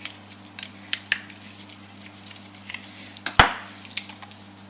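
Small clicks and ticks of hands and tools working on a power cable's connector wiring, with one loud knock a little past halfway, over a steady low hum.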